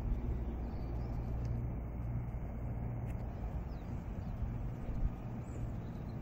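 Steady low outdoor rumble, with a few faint high bird chirps now and then.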